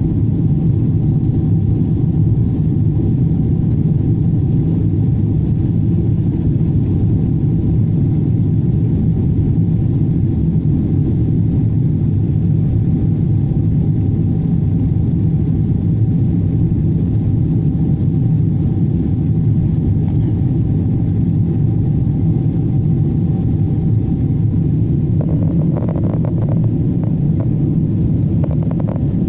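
Steady low rumble of a Boeing 777-200's engines and airflow heard inside the cabin during the climb after takeoff, with a faint steady hum above it.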